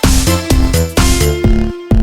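Electronic dance music with a steady beat, about two hits a second, and short pitched synth notes between them.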